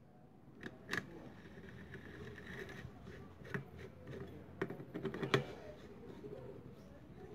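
Socket wrench tightening the clutch pressure-plate bolts on a motorcycle engine: scattered light metallic clicks and taps at an uneven pace, loudest about five seconds in.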